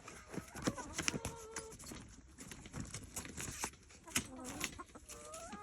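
Chickens clucking in short pitched calls, the longest rising near the end, among many sharp crunches and knocks.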